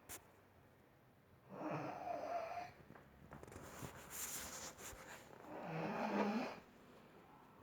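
A woman snoring loudly in her sleep: two long snores about four seconds apart, with a hissing breath between them.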